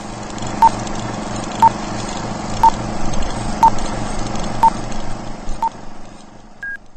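Film-leader countdown sound effect: a short beep once a second, six times, over a steady fluttering hum, then one higher-pitched beep near the end.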